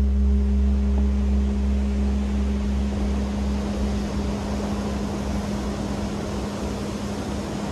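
Ocean surf breaking on a sand beach, an even wash of wave noise that grows as a steady low humming tone fades out over the first half.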